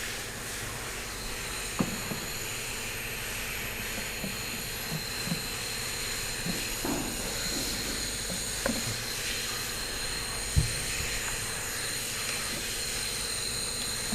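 A steady mechanical hiss with several faint high whining tones, and a few light knocks and clicks, the loudest about ten and a half seconds in.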